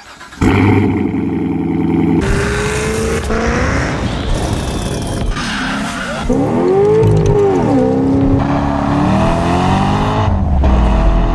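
A car engine revving hard, its pitch rising and falling, with tyre squeal as the car does burnouts and donuts in a cloud of tyre smoke. The sound changes abruptly several times, as short clips are cut together.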